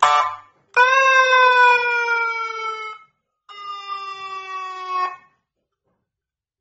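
12V electronic police-style siren horn sounding: a short harsh blip, then two buzzy, overtone-rich blasts of about two seconds each, their pitch sagging slightly as each one holds.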